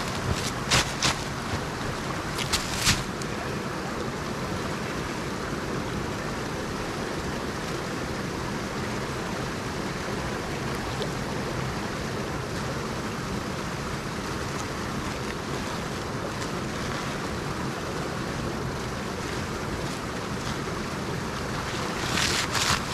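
A shallow stream running steadily over its bed, a continuous rushing hiss. Boots crunch in snow a few times about a second in and again near the end.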